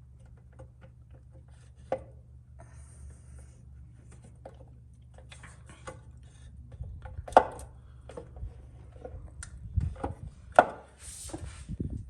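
Hard clicks and knocks of tools and engine parts being handled during engine reassembly. The loudest are two sharp knocks about seven and a half and ten and a half seconds in. A steady low hum runs underneath.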